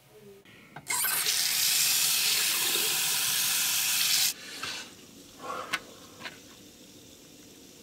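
Bathroom sink faucet running hard into the basin for about three seconds, starting and cutting off suddenly. A few faint clicks follow.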